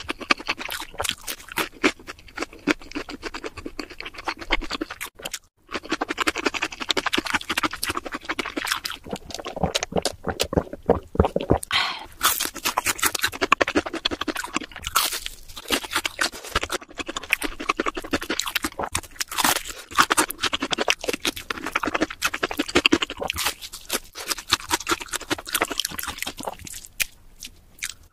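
Close-miked biting and chewing of crispy fried chicken: a dense, continuous run of crunches, with a brief pause about five and a half seconds in.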